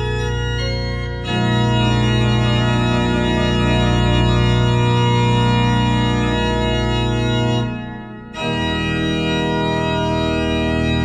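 Organ music: thick sustained chords, each held for several seconds. The chord changes about a second in, then the sound briefly dips and a new chord enters near the end.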